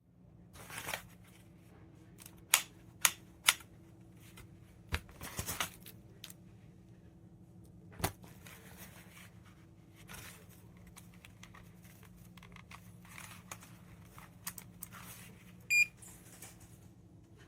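Scattered sharp clicks and knocks of small objects being handled, then one short high electronic beep near the end, over a faint steady hum.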